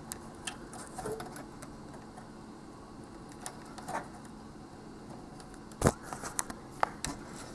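Small plastic wire connectors being handled and pushed onto a flat-screen TV's circuit board: scattered light clicks and taps, with the sharpest click a little under six seconds in and a quick run of ticks after it.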